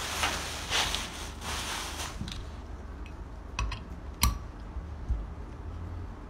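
Screw clamp on a small metal vessel being worked by hand. There is a noisy hiss for about two seconds, then a few scattered metallic clicks and taps, the sharpest about four seconds in.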